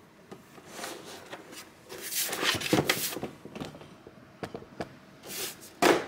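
Hands pressing and sliding on the plastic back cover of an all-in-one PC, with scattered plastic clicks and knocks as the cover is pushed down into its clips; the loudest come about two to three seconds in and again near the end.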